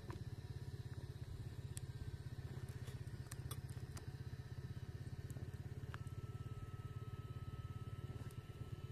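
Steady low engine rumble with a fast, even pulse, with a few light clicks over it.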